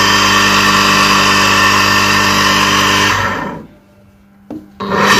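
Single-phase tullu water pump motor (Havells, 0.5 HP) running with a steady electric hum, started on its newly fitted 10 µF capacitor, so the capacitor wiring works. The sound drops away abruptly about three and a half seconds in and comes back at full level just before the end.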